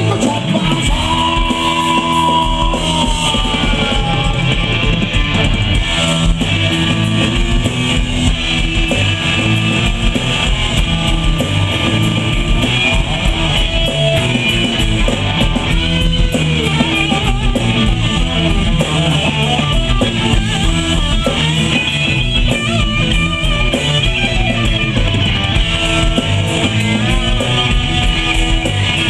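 Live blues-rock band playing an instrumental passage: electric guitar, electric bass and drum kit, loud and steady.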